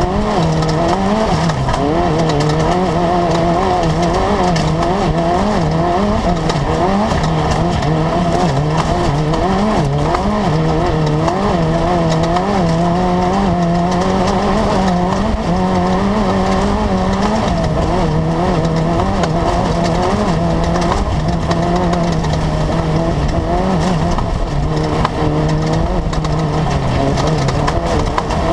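Class 10 off-road race car's engine running hard at racing speed. The revs rise and fall constantly as the throttle works through the course, over a rough, steady rumble.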